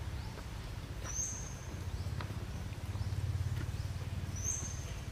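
Outdoor forest ambience: a steady low rumble, with two short high bird chirps about three seconds apart and a few faint clicks.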